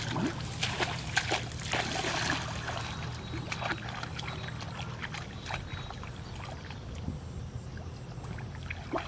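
Water splashing and sloshing in a shallow canal as a hooked fish thrashes at the surface and a person wades in and works his hands through the water. The splashing is heaviest in the first two or three seconds, then settles to quieter, scattered sloshes, over a steady low hum.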